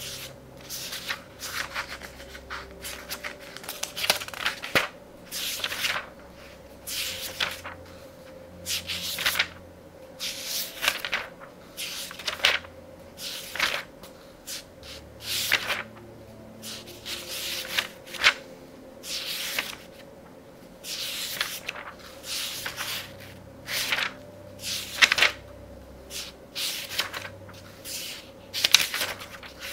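Pages of a book of a couple of thousand pages being turned quickly, one rustling paper swish about every second. Soft music plays faintly underneath.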